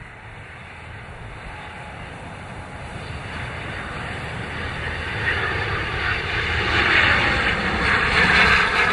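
Twin-turboprop airliner flying in low overhead, its engine and propeller noise growing steadily louder as it approaches.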